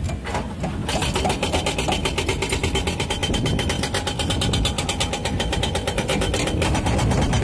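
Diesel engine of heavy construction equipment running steadily close by, with a fast, even clatter that sets in about a second in.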